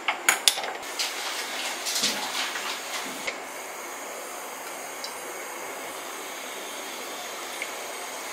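Gas stove knob clicking a few times as the burner is lit, then the burner hissing steadily under an empty aluminium pot.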